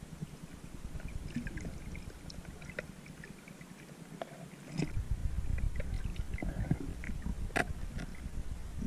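Underwater ambience picked up by a submerged camera: a low rumble of moving water with scattered sharp clicks and crackles. The rumble fades for a few seconds, then comes back stronger about halfway through, and one louder click stands out near the end.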